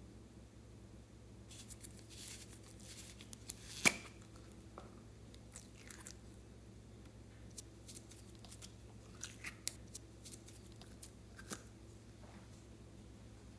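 Slime being squeezed and kneaded by hand, giving faint, irregular crackles and small sticky pops, with one sharper click about four seconds in.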